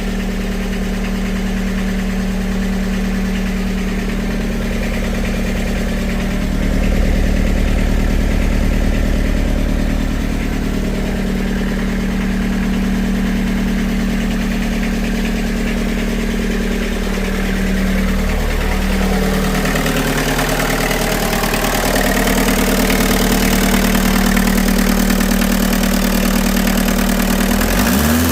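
VW Golf Mk2's 1.6-litre four-cylinder diesel engine idling steadily, running again after being jump-started from a completely flat battery.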